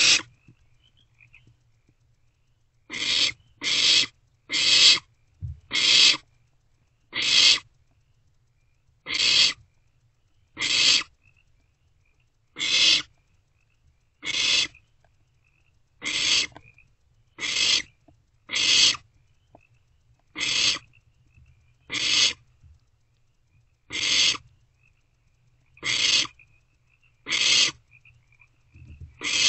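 Barn owl owlets giving short, harsh hissing screeches, one about every one to two seconds. This is the nestlings' food-begging call.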